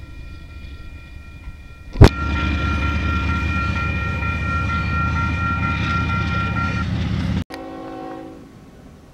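Diesel freight locomotive's air horn blowing a steady multi-note chord over the low rumble of the train. It is faint at first, jumps loud after a sharp click about two seconds in, and cuts off abruptly about seven and a half seconds in. A brief, lower horn chord follows the cut.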